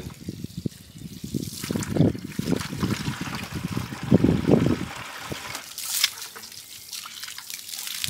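Water trickling and splashing from a 5-gallon plastic bucket as it is handled, with a thin stream running out of the bulkhead fitting in its bottom.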